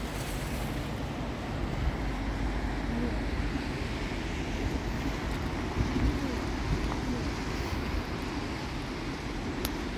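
Wind blowing across the microphone: a steady low rumbling noise with small gusts, over a general wash of surf and distant traffic.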